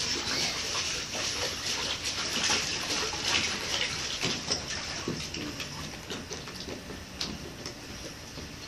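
Swimming-pool water lapping and sloshing around a floating pool lounger: a steady wash of water noise with small irregular splashes, easing a little toward the end.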